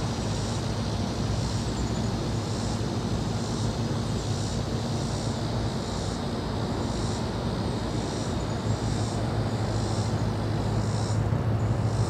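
Outdoor background with a steady low engine-like hum and a high chirping pulse repeating about twice a second.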